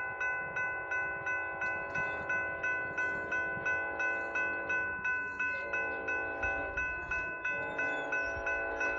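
Railroad grade-crossing warning bell ringing steadily, about three strikes a second, signalling an approaching train. A low rumble joins it near the end.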